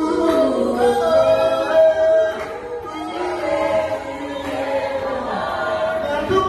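A choir singing, with several voices holding long notes.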